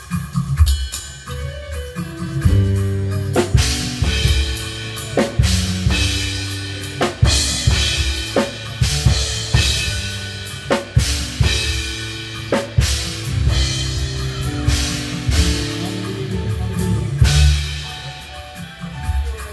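Live drum kit playing a groove, with kick, snare and cymbal strikes, under held instrument notes that change every second or so, as a band plays through a sound check.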